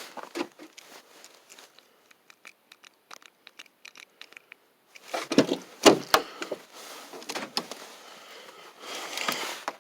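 Handling noises: a run of light clicks and jingles, then several heavy knocks and thumps about five seconds in, followed by scraping, as of keys and a truck door being worked before a start. No engine is running.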